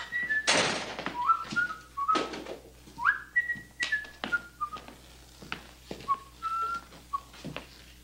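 A man whistling a tune in short notes, over the sharp knocks of boot footsteps on a wooden floor, with a louder thump about half a second in as the door shuts.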